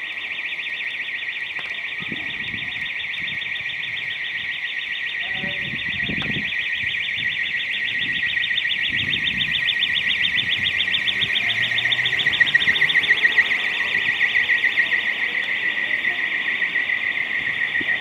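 Alarm sounding continuously, a high tone pulsing many times a second, growing louder about two-thirds of the way in.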